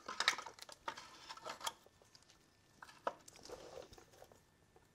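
Faint clicks and metal clinks of a clutch pressure plate being handled and test-fitted against a Porsche 915 transaxle's bellhousing and release fork, mostly in the first two seconds with another knock near three seconds.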